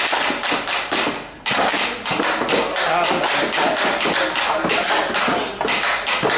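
Homemade cardboard-box instruments (RuBBaBoxes) being tapped and thumped in a quick, steady beat, with some pitched twanging under the taps. The beat breaks off for a moment about a second and a half in, then picks up again.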